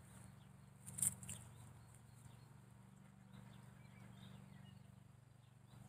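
Quiet outdoor ambience: a low steady hum, two soft sharp clicks about a second in, and faint bird chirps.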